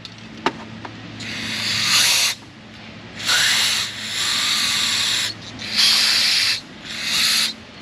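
Aerosol brake parts cleaner hissing out in four spray bursts into the slide-pin bores of a brake caliper bracket, flushing out old grease and crud. The first burst swells up over about a second, the second is the longest, and the last two are short.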